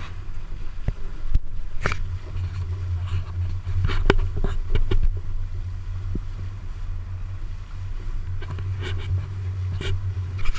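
A boat engine running steadily with a low hum, with scattered short knocks and clicks over it.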